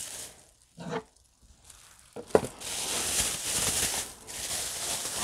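Clear plastic bag crinkling as it is handled and pulled at, starting about two seconds in after a sharp click.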